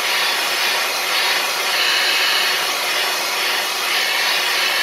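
Hair dryer blowing steadily at full power, heating the newly fitted LCD and glass so the adhesive softens and bonds firmly.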